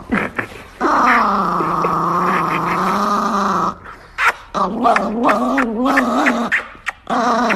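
Small white chihuahua growling with its teeth bared while being held and hugged: one long, steady growl of about three seconds, then a run of shorter, wavering growls.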